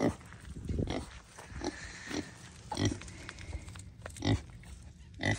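Pig grunting in short separate grunts while it roots for food, about seven of them, the loudest at the start and near the end.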